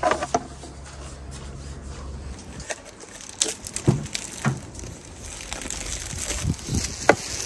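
Hands unwrapping plastic food packaging: the crinkle of a plastic film and a cup lid being peeled, with scattered light clicks and rustles. A low steady rumble sits under the first two seconds or so, then stops.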